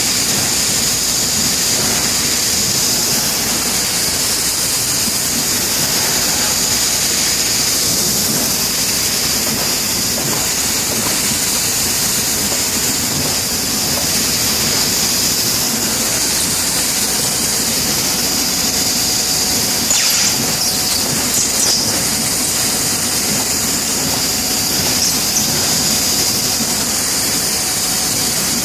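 Bystronic CNC laser cutting machine running: a steady hiss with a high-pitched whine over it, and a few short clicks about twenty seconds in.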